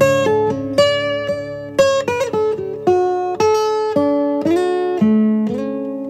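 Calm instrumental background music: a plucked acoustic-guitar melody over sustained tones, with new notes about twice a second, settling onto a held chord near the end.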